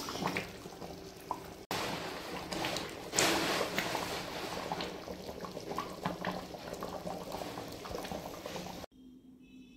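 Thick pork and taro-flower curry bubbling and simmering in a metal kadhai, with a ladle stirring through it in the first couple of seconds. The bubbling cuts off suddenly near the end.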